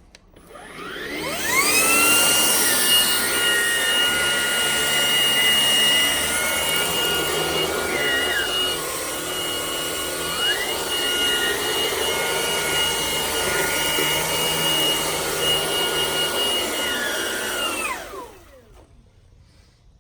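Hoover ONEPWR Blade MAX cordless stick vacuum switched on, picking up soil from a carpet. Its motor whine rises as it spins up, holds a steady high pitch, then falls away as it is switched off near the end. Near the middle, part of the whine drops lower for a couple of seconds and then comes back up.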